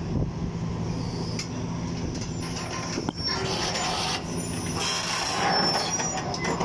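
Sumitomo SH210 tracked excavator's diesel engine running at a steady pitch, with swells of higher hissing noise over it and a short knock about three seconds in.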